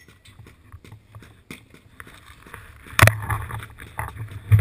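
Rustling and handling noise from camouflage netting brushing against the camera, with scattered small clicks. A sharp pop about three seconds in is followed by a brief noisy burst.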